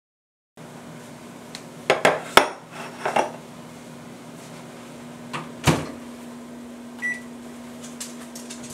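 Several sharp kitchen clanks and knocks, dishes and cupboard, over the steady hum of a running kitchen appliance, with one short electronic beep about seven seconds in.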